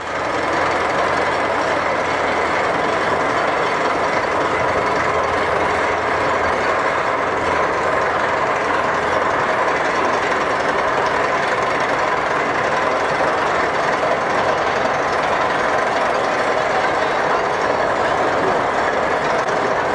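Roller coaster running: a steady mechanical rattle and rumble from the train and track that holds at one level throughout.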